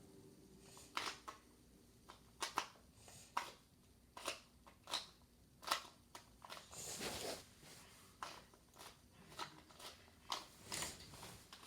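A 2x2 Rubik's cube being turned by hand: irregular plastic clicks as the layers snap round, about one or two a second, with a longer scraping rustle about seven seconds in.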